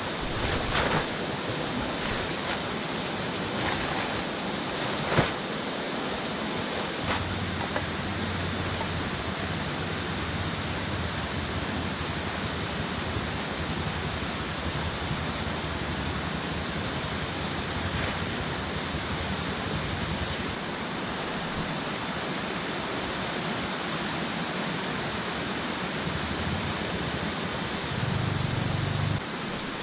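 Steady rush of a river flowing over rocks, with a few brief sharp knocks or crinkles in the first five seconds.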